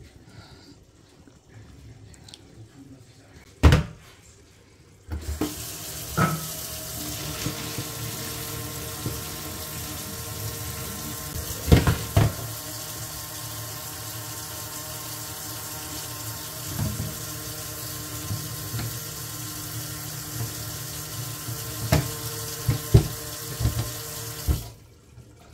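Kitchen tap running into a stainless-steel sink while a pot of boiled plantain is tilted and drained over it. The tap comes on about five seconds in and stops just before the end. A sharp knock comes before the water starts, and several clinks of the pot and its glass lid follow.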